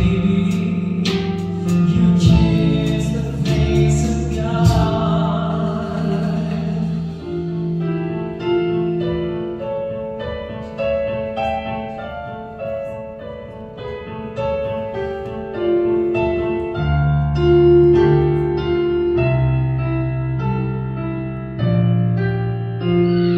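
Live band playing an instrumental break: drum and cymbal hits over held chords for the first few seconds, then a piano melody on an electric keyboard over a bass line.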